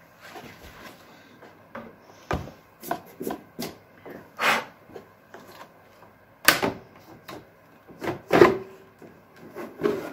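A Xiaomi air purifier's new filter being handled and fitted into its plastic housing: a string of knocks, clicks and short scrapes, with a few louder knocks spread through.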